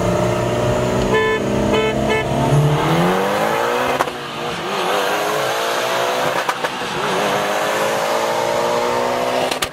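BMW 335i's turbocharged inline-six, heard from inside the cabin, pulling hard under full acceleration with its revs climbing. About four seconds in it shifts up, the pitch drops, and it climbs steadily again through the next gear.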